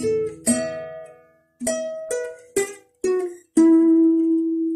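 Plucked string instrument playing the song's closing phrase: several single notes, each left to fade, then a final note about three and a half seconds in that rings out long.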